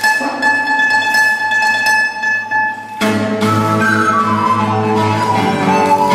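Duet of a small wooden end-blown flute and a nylon-string classical guitar. A steady held tone sounds first, then about halfway through the sound changes abruptly and a moving flute melody comes in over the guitar accompaniment.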